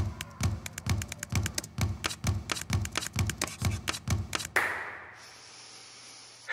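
Basketballs dribbled on a gym floor: low bounces about twice a second under a busy clatter of sharper taps, stopping about four seconds in. Then a sudden scratchy hiss that fades to a faint steady hiss.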